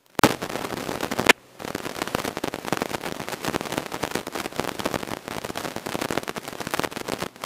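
Wind buffeting and crackling on the microphone of a camera mounted outside a small plane in flight, cutting in suddenly and running on as a dense crackle, with two sharp cracks in the first second and a brief lull just after.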